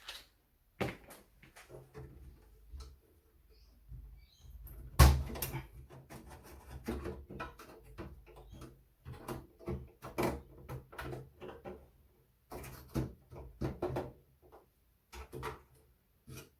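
Irregular clicks, knocks and rattles of computer parts being handled inside an early Compaq Portable's chassis, as the floppy drive ribbon cable is unplugged and the floppy controller card is pulled from its slot. One sharp knock about five seconds in is the loudest.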